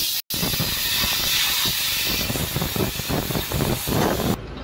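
Compressed air hissing from a blow gun as it is blown through a car's AC cabin filter to clean it. The hiss breaks off for an instant just after the start and stops abruptly near the end.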